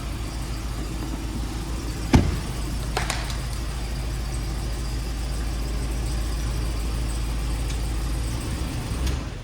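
The 2019 Ram 2500's 6.4-litre V8 engine running steadily, with a sharp knock about two seconds in and a lighter one about a second later.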